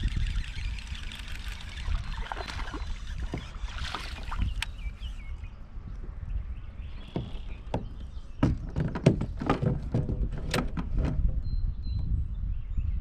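Fishing kayak on the water: a run of sharp knocks and rattles around the boat about two-thirds of the way through, over a steady low rumble.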